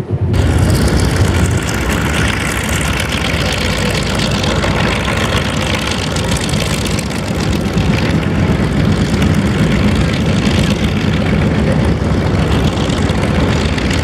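A WWII piston-engine propeller fighter running on the ground while taxiing: a loud, steady engine rumble with propeller noise.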